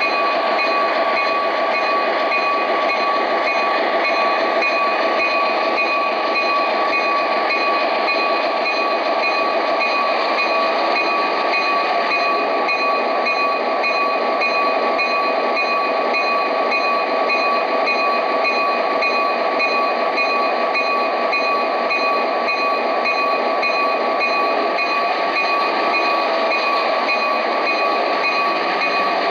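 O scale Amtrak F59PHI model locomotive with its onboard sound playing a diesel locomotive running steadily, with a few fixed tones over a steady rumble and no breaks.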